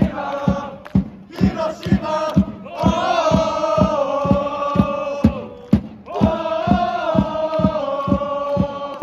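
Crowd of football supporters singing a chant together in long held notes over a steady low beat of about three a second.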